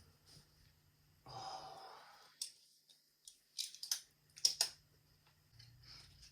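Small metal can of diced green chilies being opened: a soft rush, then a quick cluster of sharp metallic clicks and scrapes, the loudest about four and a half seconds in.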